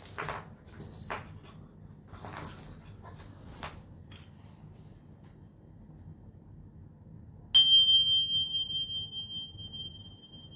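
Small bells and a metal rattle shaken in four short jingling bursts over the first four seconds. After a pause of about three seconds, a single bell is struck, and its high, clear tone rings on and slowly fades.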